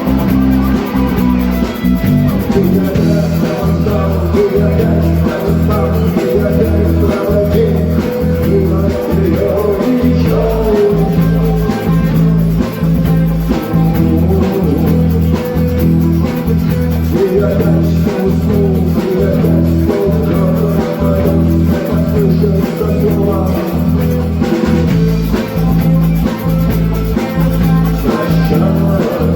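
Rock band music: electric guitar, bass guitar and a drum kit playing at a steady beat.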